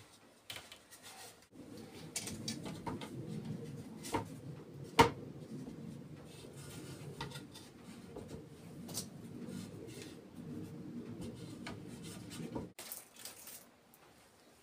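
Scattered clicks and knocks of a wooden window sash and its hardware being handled and adjusted, with one sharp click about five seconds in. A low steady background noise runs under them and stops abruptly near the end.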